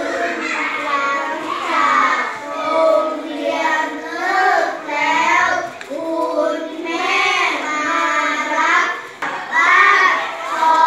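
A class of children reading Thai verse aloud together in a sing-song chant, their voices rising and falling in phrases of about a second with short breaks between.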